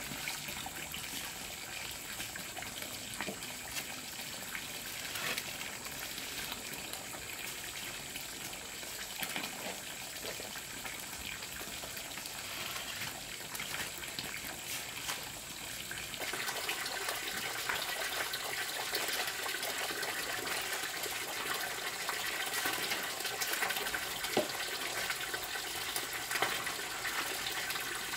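Hand masonry work: concrete blocks and mortar being set, with scattered light knocks and scrapes, over a steady rush of running water and a thin high steady tone. The background gets louder about two-thirds of the way in.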